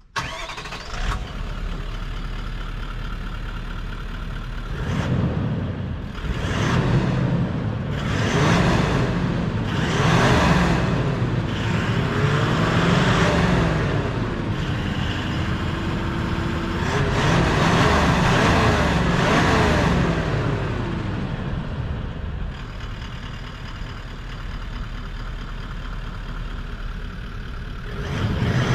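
Toyota LandCruiser 70 Series 4.5-litre turbo-diesel V8 idling, then revved several times, each rev rising and falling in pitch and one held briefly, before settling back to idle. At the very end it begins to pull away.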